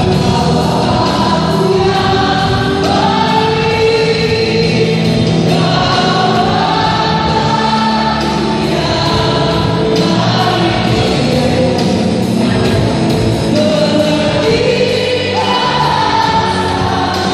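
Live church worship music: women singers leading an Indonesian praise song in long held notes over a live band of guitar, keyboard and drums.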